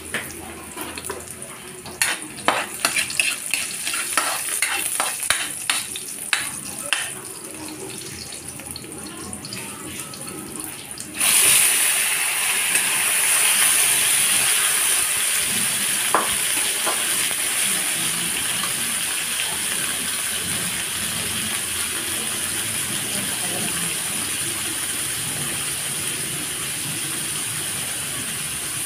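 A metal spatula scrapes and clicks against an aluminium wok holding garlic and onion. About eleven seconds in comes a sudden loud sizzle as raw pork cubes go into the hot oil, and the sizzling runs steadily and slowly eases while the pork is stirred.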